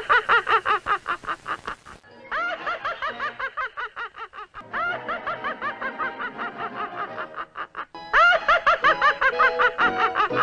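Felix the Cat's cartoon laugh: a rapid run of high-pitched 'ha-ha-ha' syllables, about six a second, with a background music score. Abrupt splices break the laugh about 2 and 8 seconds in, where one laughing clip is cut to the next.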